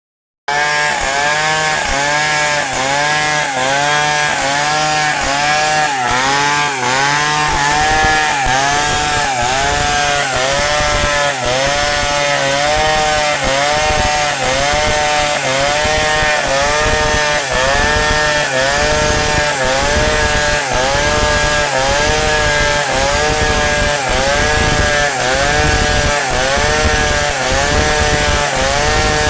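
Chainsaw running under load while cutting wood into planks, its engine pitch dipping and recovering about once a second as the chain bites and the cut goes on.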